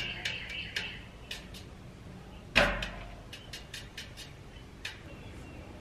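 A thin rod stirring enamel paint in a metal paint can, with a series of light clicks and taps against the can and one louder knock about two and a half seconds in.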